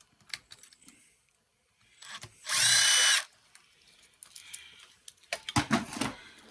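Power drill spinning for under a second in one short burst with a high whine. Several seconds later come a run of clicks and rattles of parts being handled.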